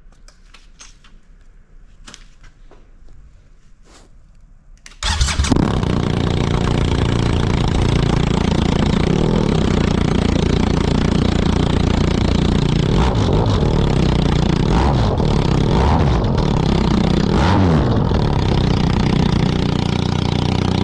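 BMW R1250GS Adventure's boxer-twin engine running through a straight pipe, with the muffler removed and only the open link pipe and its exhaust flapper valve left. A few faint clicks come first; then about five seconds in the engine starts suddenly and settles into a loud, steady idle.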